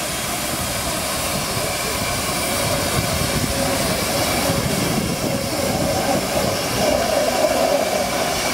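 Steam locomotive No. 2685, a 4-8-2, rolling slowly past at close range: a steady rumble and hiss that grows louder as it nears.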